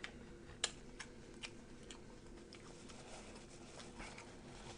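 Quiet chewing, with a few faint, sharp mouth clicks scattered through it.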